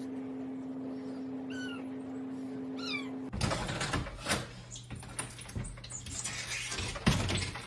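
Cat meowing twice over a steady hum, then a series of thumps and knocks as the cat jumps up and paws against a glass storm door, the loudest thump near the end.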